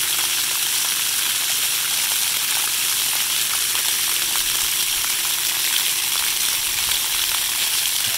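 Splash pad water jets spraying up from ground nozzles and falling back onto the concrete: a steady hiss of water.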